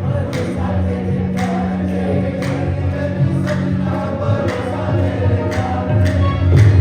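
Live qawwali music: a group of voices singing together over sustained low tones and a steady beat struck about once a second.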